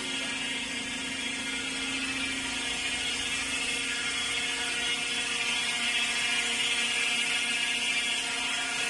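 Automatic transmission of a 2021 Hyundai Accent humming steadily as its wheels spin at 70 to 80 km/h on a lift, a cricket-like whine. The hum comes from a worn idler bearing inside the transmission.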